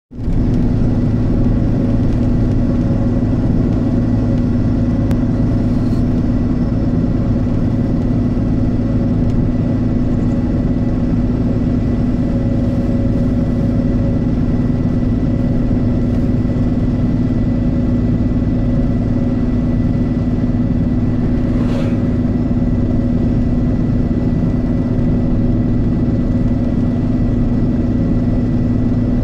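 Road vehicle driving at a steady cruising speed: an even engine hum with tyre and road noise and little change in pitch. A single short tick sounds about three-quarters of the way through.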